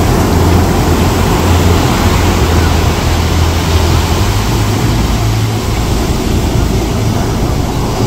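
Ocean surf breaking and washing up the sand at the shoreline: a loud, steady rushing.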